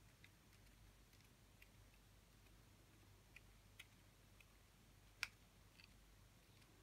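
Near silence with a few faint scattered ticks, the sharpest about five seconds in: the tip of a Nuvo marker dabbing dots onto paper.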